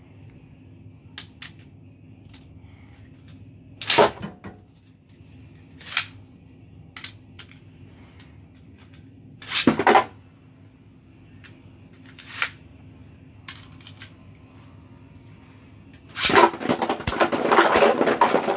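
Beyblade Burst spinning tops in a plastic stadium: scattered sharp clicks and knocks of tops hitting the stadium and each other. Near the end comes a dense clatter as the tops clash and one bursts apart, its pieces rattling across the plastic.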